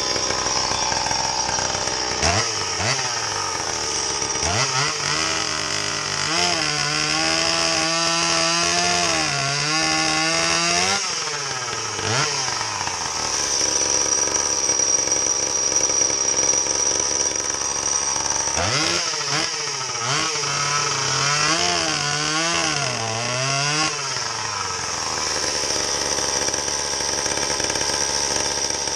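Stihl MS170 30cc two-stroke chainsaw fitted with a home-made expansion-chamber exhaust, running at high revs. In two long spells the engine note climbs, swoops and wavers up and down, then settles back.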